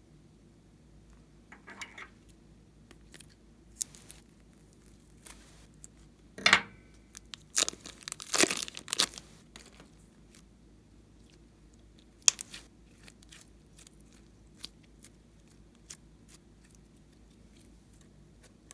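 Crinkling and tearing of thin plastic, heard as scattered clicks and short crackles, with a loud burst about six and a half seconds in, a longer crackling cluster around eight to nine seconds, and a sharp snap near twelve seconds.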